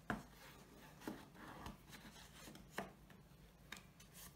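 Faint handling of greyboard pieces and black adhesive tape being pressed together by hand: a few soft taps and rubs, the loudest right at the start.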